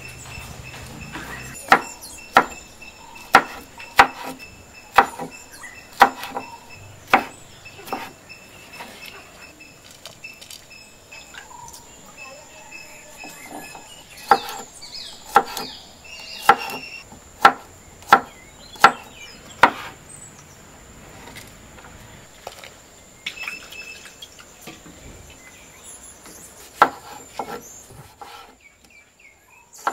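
Large kitchen knife chopping garlic cloves and tomatoes on a wooden cutting board: runs of sharp knocks on the board, about one or two a second, with pauses between runs. Insects trill steadily in the background.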